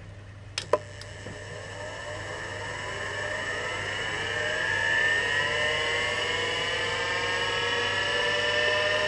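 Seagate ST-251 5.25-inch MFM hard drive powering up: two sharp clicks, then the spindle motor spins up with a whine that rises in pitch and loudness and levels off at running speed, over a low steady hum.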